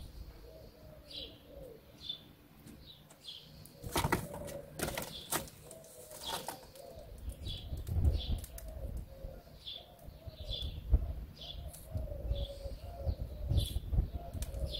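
Small birds chirping over and over, with a pigeon cooing low and steadily underneath. A quick cluster of sharp clicks and rustles comes about four to six seconds in.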